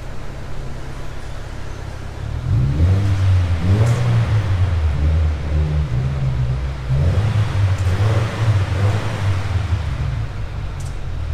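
2015 Subaru WRX's turbocharged 2.0-litre flat-four, breathing through a new Invidia N1 cat-back exhaust, running under load. About two seconds in it gets louder and revs up, its pitch rising and stepping up and down as the car accelerates.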